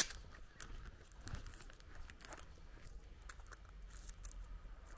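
Footsteps on a dirt road, a faint step about every half second to second, after one sharp, loud click at the very start.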